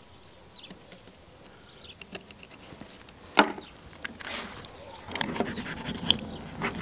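Kitchen knife working on a whole sturgeon on a stone counter. A single sharp knock comes about three and a half seconds in, then from about five seconds a run of rapid scraping and cutting against the fish's tough skin.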